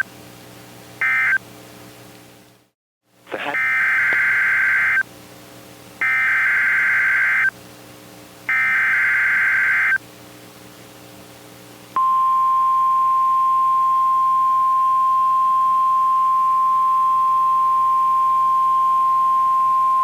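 Emergency alert data tones: two short buzzing end-of-message bursts close the previous warning, and after a brief dead gap three longer SAME header bursts of about a second and a half each announce the next alert. Then the single steady 1050 Hz weather-radio warning alarm tone starts and holds for about eight seconds, over a faint low hum.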